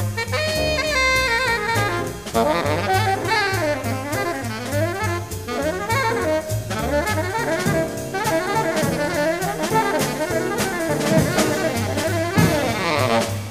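Live jazz: a tenor saxophone soloing in fast runs of notes that rise and fall without pause, over a walking double bass and a drum kit.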